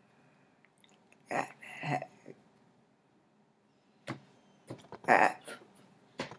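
A woman's voice in two short bursts, about a second in and again about five seconds in, with a few sharp knocks between them.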